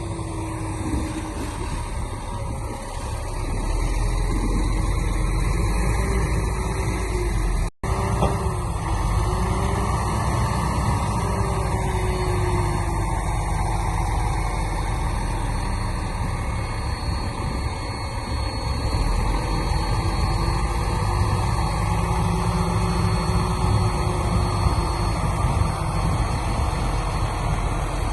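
Heavy diesel earthmoving machinery running steadily, the engine note drifting slightly up and down. The sound drops out abruptly for a moment about eight seconds in.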